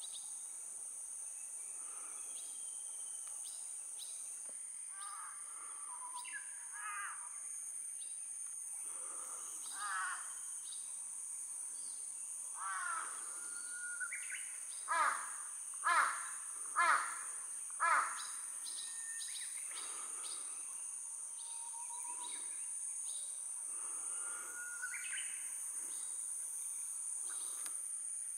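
A crow cawing: four loud caws about a second apart midway through, among other scattered bird calls, over a steady high-pitched insect drone.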